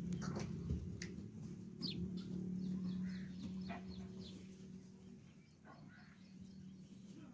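Small birds chirping in quick, repeated short calls over a faint, steady low hum from an old diesel 'black oil' engine running. The hum fades in the second half.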